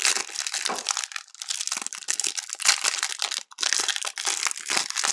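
Crinkling of a clear plastic trading-card pack wrapper as a stack of cards is handled in gloved hands: a dense run of crackles with a brief break about three and a half seconds in.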